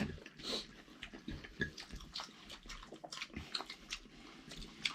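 Close-up eating sounds: chewing with small, irregular wet clicks and smacks of a mouthful of food.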